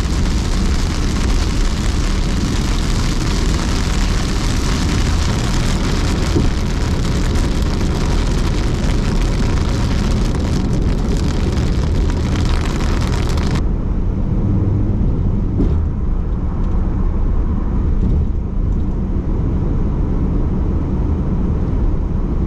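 Car driving at speed, heard from inside: steady road and engine rumble under a loud rushing hiss. About two-thirds of the way through the hiss cuts off suddenly, leaving only the low road rumble.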